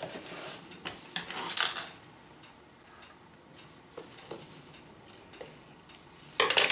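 Handling noises at a stopped sewing machine: light clicks and the rustle of thin ripstop nylon fabric being pulled out from under the presser foot. There are a few faint ticks, and a brief louder crinkle near the end.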